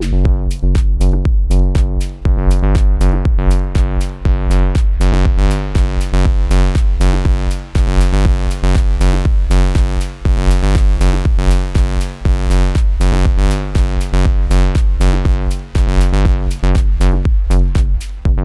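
Moog Subsequent 25 analog synthesizer playing a fast, punchy repeated bass pattern, with a drum-machine beat underneath.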